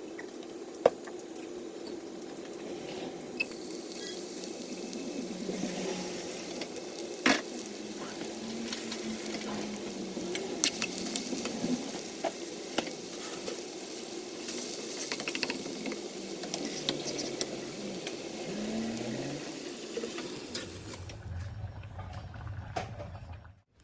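Food frying in hot oil, sizzling steadily, with a few sharp clicks. Near the end the sizzle drops away, leaving a low hum.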